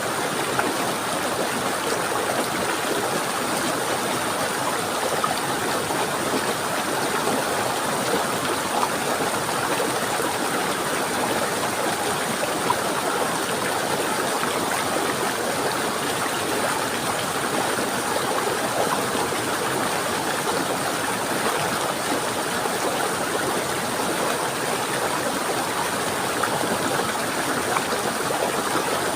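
Running water of a stream, flowing steadily with an even splashing hiss.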